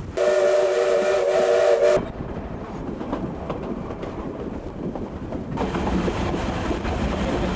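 Steam locomotive's whistle sounding one blast of about two seconds, a chord of several pitches, followed by the steady running noise of the train on the rails, heard from aboard the train.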